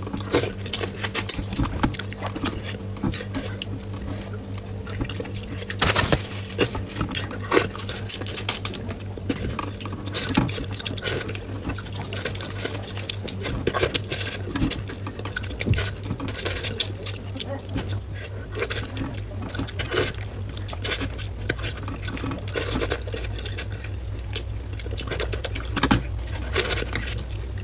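Close-miked eating sounds: wet chewing and mouth noises from eating braised fish, with irregular clicks and taps of chopsticks against the plate and a plastic bowl, over a steady low hum.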